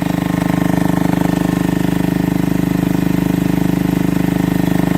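Engine of a UHI UME10P one-tonne mini excavator running steadily with a fast, even throb, as the machine is worked off a trailer.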